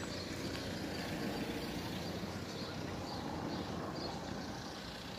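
Outdoor park ambience: a steady low rumble of distant road traffic with faint bird chirps repeating over it.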